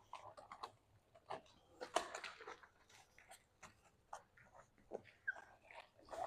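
Faint, irregular wet crackling and scrubbing as a soapy wash mitt is rubbed along a car's side panel.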